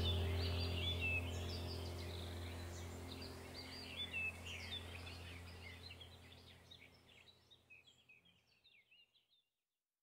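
Birdsong ambience: many birds chirping and twittering over a steady low hum, fading out gradually to silence about eight seconds in.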